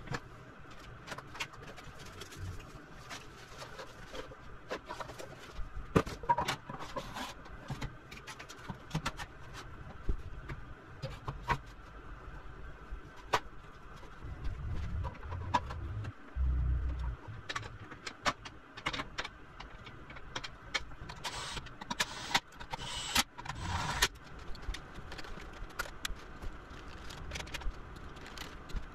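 Irregular sharp clicks and clatter of tools and metal parts being handled while a Prius hybrid battery pack is taken apart, over a steady faint hum, with a low rumble about halfway through.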